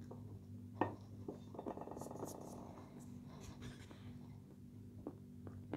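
Close-miked chewing of dry, crumbly edible clay (light Turkestan clay): a sharp crunch about a second in, a run of fine crackling about two seconds in, then a few softer clicks.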